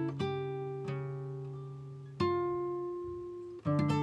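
Background music: plucked guitar notes that ring and fade, with a new note or chord every second or so.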